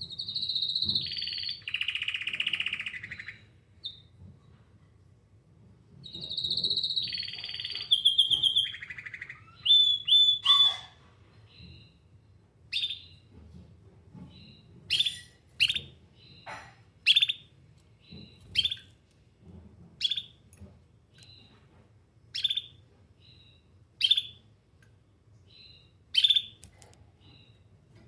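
Domestic canary singing two rolling, trilled song phrases. It then gives a steady series of short, sharp, high chirps, roughly one every second or so.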